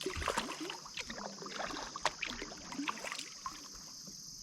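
Kayak paddle dipping and splashing in creek water, with drips and small knocks for the first three and a half seconds, then easing off. A steady high chirring of insects runs underneath.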